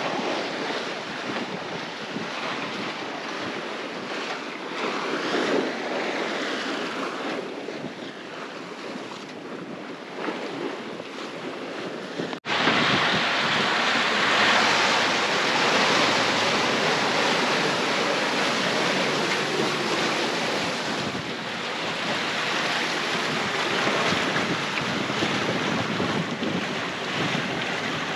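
Wind buffeting the microphone over the rush and splash of waves along the hull of a sailboat under way in open sea. A little before halfway it cuts abruptly to a louder stretch of the same wind and water.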